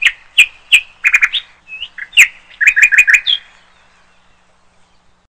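Bird chirping: a string of short, high chirps, some in quick runs, stopping about three and a half seconds in.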